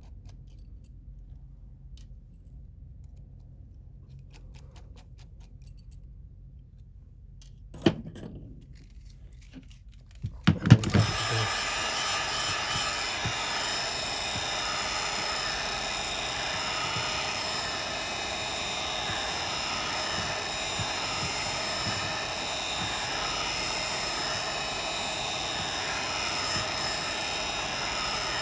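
Faint ticks of small screws being worked, a knock about eight seconds in, then a heat gun switched on about ten seconds in, its fan and hot air running steadily and loudly.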